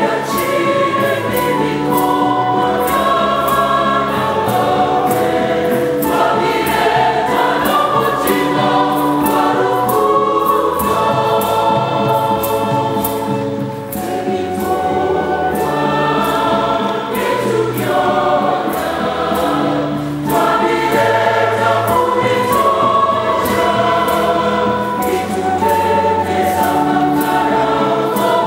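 Large mixed choir singing a Catholic hymn in full harmony, accompanied by a wind and brass band and drums keeping a steady beat.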